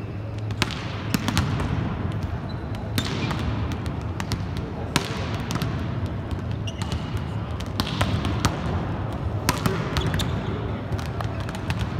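Volleyballs being spiked in warm-up: irregular sharp smacks of hand on ball and ball on the court floor, several a second at times, each echoing through a large, near-empty arena over a steady low hum.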